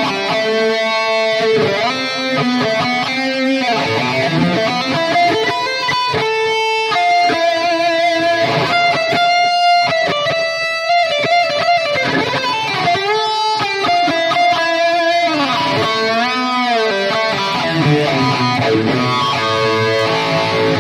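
Electric guitar played through a Kemper profiling amplifier effects preset: a run of picked notes and chords, with several long sustained notes held with a wide vibrato.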